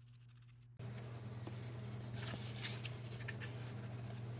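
Soft scraping and clicking of a small stick working J-B Weld epoxy on a piece of cardboard. About a second in, a steady low hum comes in under the scrapes.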